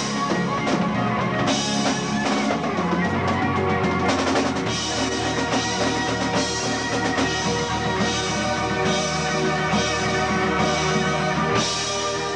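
Progressive rock band playing live: electric guitar over a full drum kit with bass drum and cymbals.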